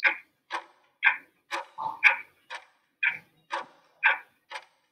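Ticking clock sound effect of a quiz countdown timer, an even tick-tock at about two ticks a second.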